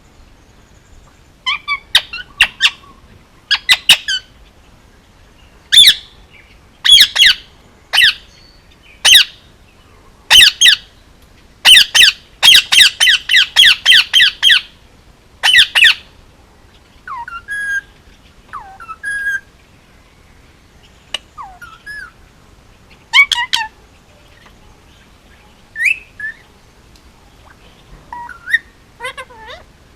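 Male Indian ringneck parakeet squawking: loud, harsh calls one after another, with a rapid run of about eight calls around the middle, then softer, shorter chirps and gliding notes in the second half.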